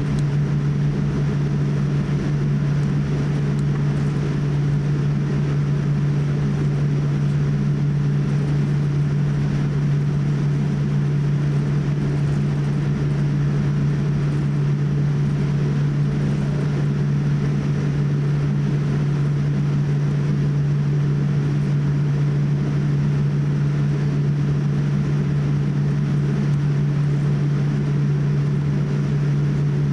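Cabin noise inside a Boeing 787-8 airliner taxiing on the ground, engines at idle: a steady low hum under an even hiss, unchanging throughout.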